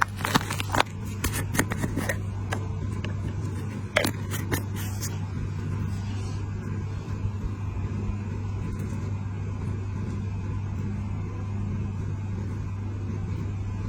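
An engine running steadily at constant speed, a low even hum, with a series of sharp clicks and knocks during the first five seconds.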